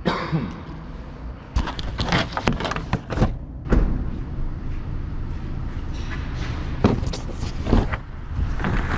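Camera handling noise: a string of sharp knocks, bumps and rubbing as the camera is grabbed and carried, with a few louder thuds.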